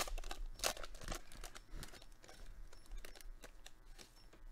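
A foil trading-card booster pack wrapper being torn open and crinkled by hand. There is a dense burst of crackling in the first second or so, then lighter crinkling.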